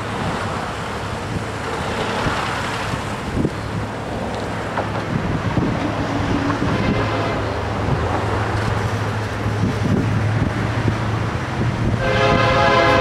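An approaching diesel freight train with wind on the microphone, a steady low engine hum setting in about four seconds in. Near the end the locomotive's air horn sounds a loud toot.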